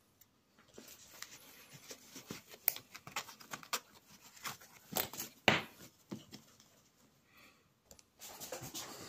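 Canvas webbing belt and canvas pistol holster being handled and fitted together: fabric rustling and scraping with scattered light knocks, the strongest about five and a half seconds in, and a brief lull shortly before the end.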